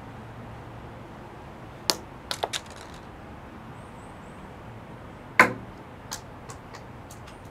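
Acorns hitting stone paving stones: a sharp click about two seconds in, three quick clicks just after, then the loudest knock about halfway through, followed by a few fainter clicks as it bounces and settles.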